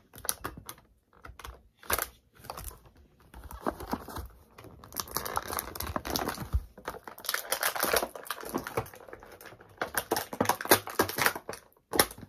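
Clear plastic toy packaging being handled and pulled open: a run of irregular crinkles and clicks, thickest in the middle and again near the end.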